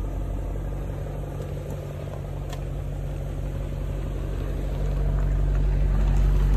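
BMW E39 M5's 4.9-litre S62 V8 idling steadily, growing louder near the end toward the rear exhaust.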